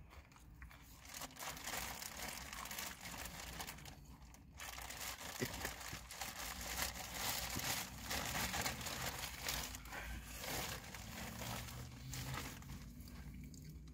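Thin plastic bag crinkling and rustling as it is handled, in irregular spells, with a brief pause about four seconds in.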